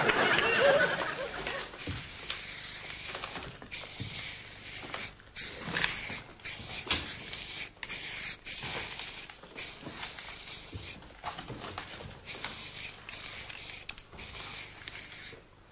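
A steady hissing, rushing noise, broken by many brief dropouts.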